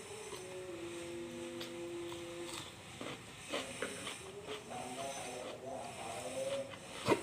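Eating sounds of fried chicken being chewed: scattered wet mouth clicks and smacks, with one sharp loud click just before the end. A low held tone runs through the first couple of seconds, and a wavering one comes in the second half.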